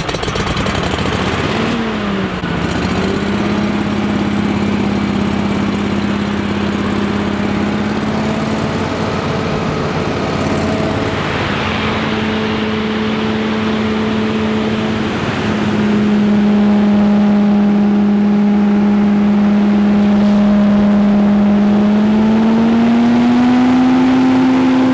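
Billy Goat Z3000 stand-on leaf blower running, its 35-horsepower engine and fan giving a steady hum. It grows louder about 16 seconds in, and revs up, rising in pitch, near the end.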